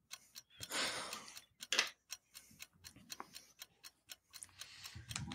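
Faint scattered clicks and ticks, with a soft breathy hiss about a second in and again near the end.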